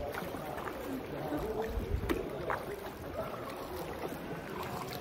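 Sea canoe being paddled through a sea cave: water sloshing and short splashes, with distant voices in the background.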